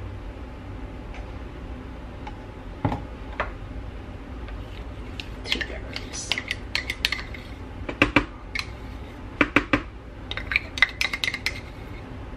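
A metal utensil scraping peanut butter out of a measuring cup and clinking against the cup and the food processor bowl: scattered sharp clicks, coming in quick clusters of taps from about halfway on.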